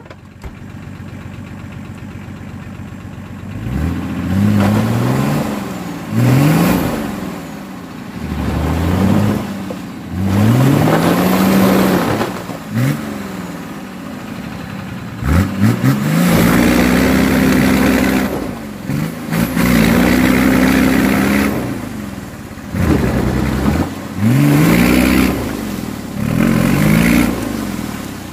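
Nissan Patrol 4x4's engine revving hard in about ten repeated bursts, each rising and then falling in pitch, two of them held high for a couple of seconds, as the truck is driven into a frozen puddle to break the ice.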